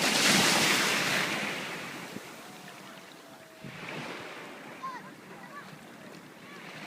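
An ocean wave breaking and washing in, a loud rush in the first second and a half that fades to a lower, steady wash of surf.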